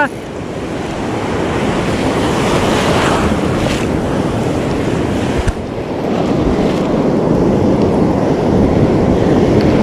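Ocean surf rushing and breaking, with wind on the microphone; the noise swells over the first few seconds, dips briefly about five and a half seconds in, then builds again.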